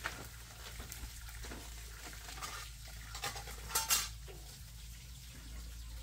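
Pot and utensils being handled: light scrapes and clinks, with a louder clatter just before four seconds in.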